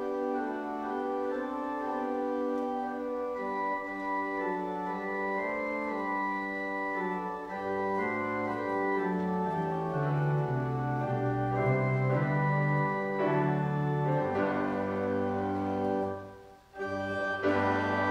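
Organ playing a hymn introduction in held chords over a moving bass line. It breaks off briefly about sixteen seconds in, then starts again.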